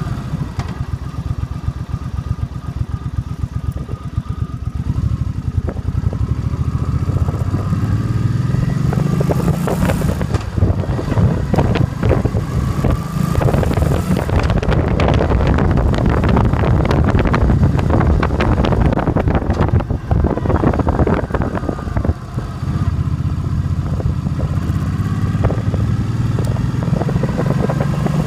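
2005 Suzuki Boulevard C50's 805cc V-twin engine under way: it runs low for the first few seconds, then rises in pitch as the bike accelerates, with short breaks about ten seconds in and again about twenty seconds in, like gear changes. It holds a steady cruise in between and picks up again near the end.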